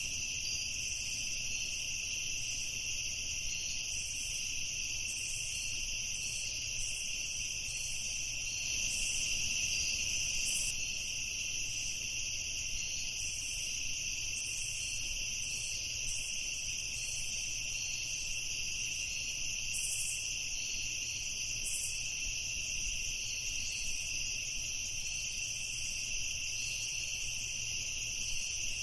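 Night chorus of crickets trilling steadily and without pause, with short higher chirps breaking in now and then.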